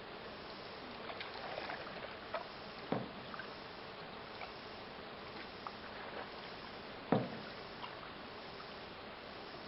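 A canoe on the water, with occasional knocks and bumps on its hull over a steady faint hiss; the two loudest knocks come about three and seven seconds in.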